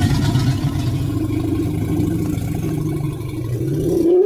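Deep, rumbling growl-like creature sound effect, held with a wavering pitch that rises slightly before it cuts off about four seconds in, as a new rising call begins.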